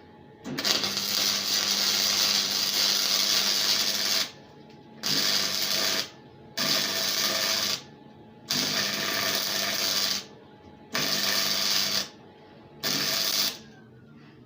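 Electric arc welder laying a string of welds: six bursts of hissing arc over a steady buzz, the first about four seconds long and the rest about a second each, separated by short pauses.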